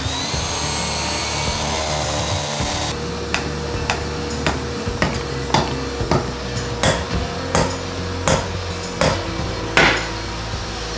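Rotary hammer drilling into a concrete slab for about three seconds, then a hammer driving split nail anchors into the holes with about eleven sharp blows, roughly three every two seconds.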